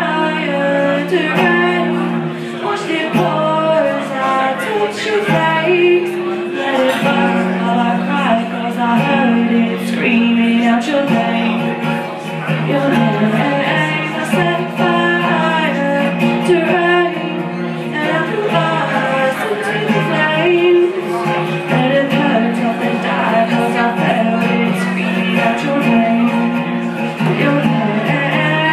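A woman singing live to her own acoustic guitar accompaniment. Strummed chords run steadily under a continuous sung melody.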